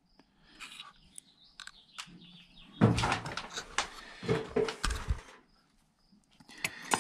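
Light clicks and rustling from small metal injector parts and tools being handled on a cloth-covered bench, including a pair of flat tweezers being picked up. The handling is loudest about three to five seconds in.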